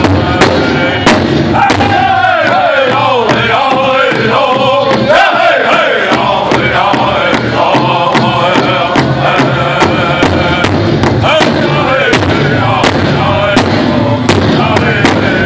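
Powwow drum group performing a contest song: several men singing a high-pitched chant in unison over a large bass drum struck together in a steady beat, about three strokes a second.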